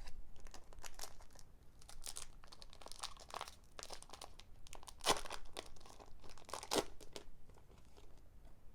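Crinkling and rustling of a foil Pokémon booster pack and trading cards being handled, in irregular bursts. The loudest crackles come about five and about seven seconds in.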